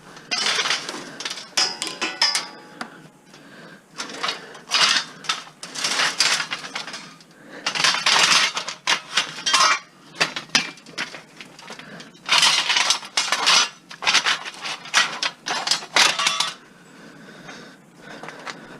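Pieces of scrap metal clattering and clinking as they are handled and tossed, in four runs of rapid impacts with short quieter gaps between them, and a brief metallic ringing in the first run.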